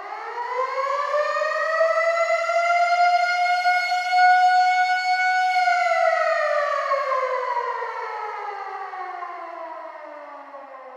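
Civil defense air raid siren winding up from a low pitch to a steady high wail, holding it for a few seconds, then about halfway through winding slowly down.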